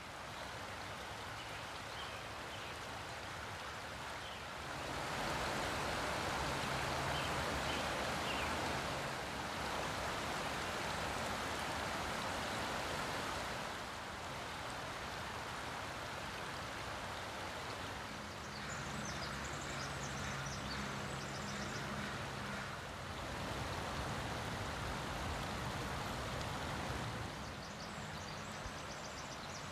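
Shallow forest creek running over gravel and stones, a steady rushing of water whose level steps up and down every few seconds. A faint low hum comes in twice, and a few faint high chirps come near the end.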